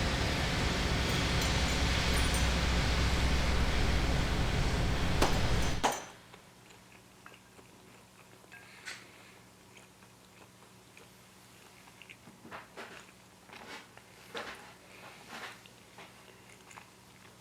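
Loud steady mechanical noise that cuts off abruptly about six seconds in. It is followed by a quiet room with faint scattered clicks and light knocks.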